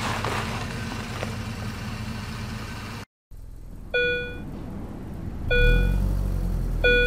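Cartoon vehicle sound effects: a steady low engine hum from the wheel loader. After a short break, three short electronic beeps follow, and a van engine starts rumbling loudly about five and a half seconds in.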